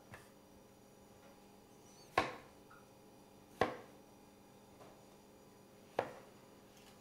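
Chef's knife cutting through a zucchini and knocking on a wooden cutting board: three sharp chops, a second or two apart, with a faint tap just at the start.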